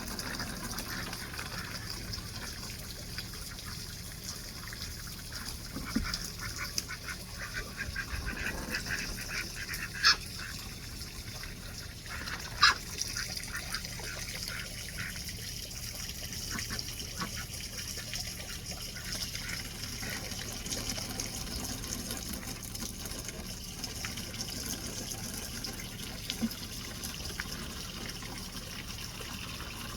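Ducks calling over steady running water, with two louder sharp calls about ten and thirteen seconds in.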